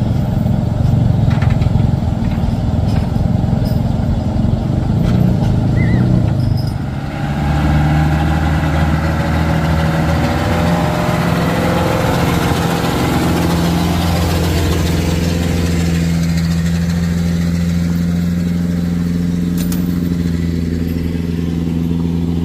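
Truck's diesel engine running: a rough, uneven rumble for the first seven seconds or so, then after a brief dip a steady, even engine note.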